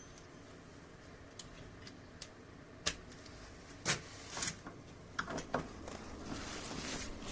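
Scattered clicks and knocks of a socket wrench and bolts being handled, with two sharper knocks about three and four seconds in and a rubbing scrape near the end.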